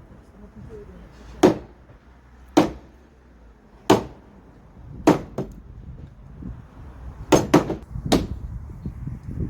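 Hammer or mallet striking timber: about seven sharp blows at roughly one-second intervals, two in quick succession near the end.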